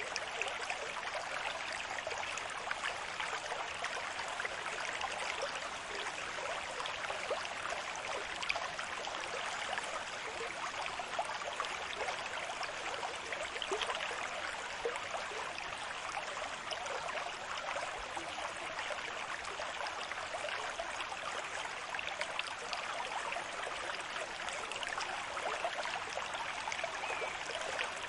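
Steady rush of water with fine splashing and trickling through it, holding an even level throughout, with no distinct swells or breaking waves.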